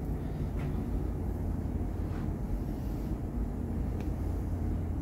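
Steady low rumble of a ferry's onboard machinery heard inside a passenger deck, with a couple of faint clicks.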